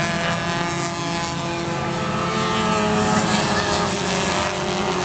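Four-cylinder stock car engines racing, several cars at once, their notes blending into a steady drone.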